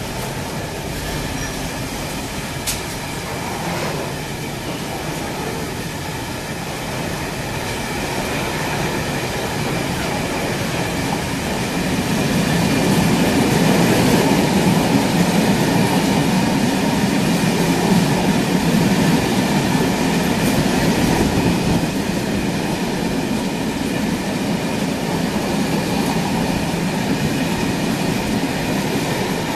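Freight train passing: the Class 66 diesel locomotive goes by at the start, then a long rake of hopper wagons rumbles and clatters over the rails, louder from about twelve seconds in.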